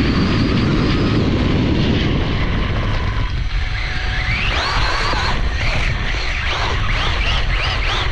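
Losi Promoto MX 1/4-scale electric RC motorcycle running over dirt, heard from a camera on the bike: a steady rumble of tyres and drivetrain, and from about halfway through the brushless motor whines in repeated rising and falling sweeps as the throttle is worked.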